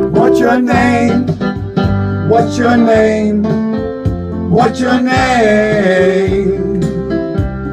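A recorded pop ballad playing back, with keyboard backing and a lead melody that wavers in pitch.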